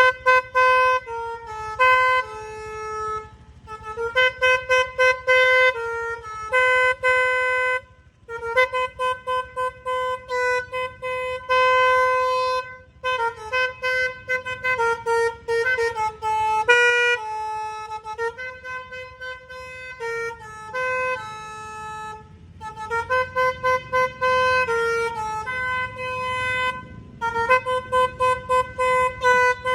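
Basuri telolet multi-tone horn on a Honda Vario scooter playing a melody: fast runs of short staccato toots alternating with longer held notes, the pitch jumping between a few steps, with brief pauses between phrases.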